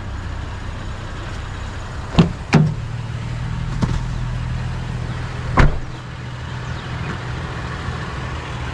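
A vehicle's engine running steadily, with four sharp knocks or clunks in the first six seconds.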